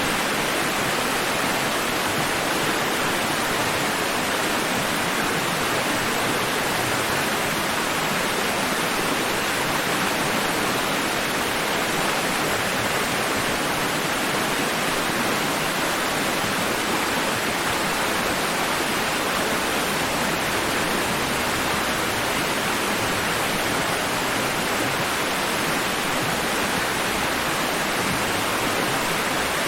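Steady, even rushing noise that holds at one level throughout, with no rise and fall of breaking waves.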